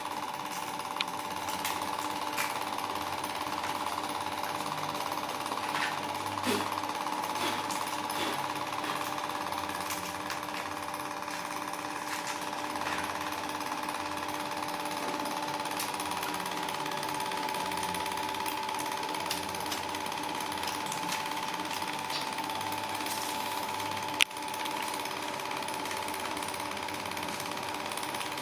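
A power tool motor running steadily with a constant whine, with scattered clicks and one sharp, loud click near the end.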